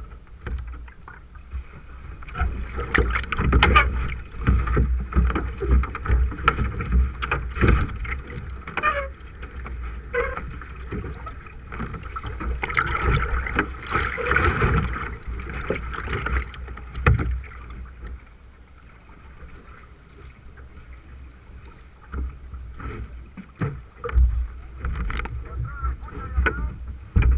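Water splashing and rushing along a K1 sprint kayak as the paddler takes hard paddle strokes, with wind rumbling on the bow-mounted camera's microphone. The splashing is busiest for the first two-thirds and eases off after about seventeen seconds before picking up again near the end.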